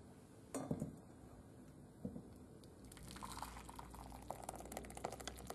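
Thick blended soup pouring from a stainless steel soup-maker jug into a ceramic bowl, starting about three seconds in, after two short knocks.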